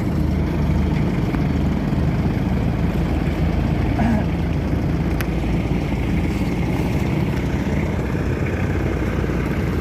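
Vehicle engine running steadily: a low drone inside a wash of travel noise.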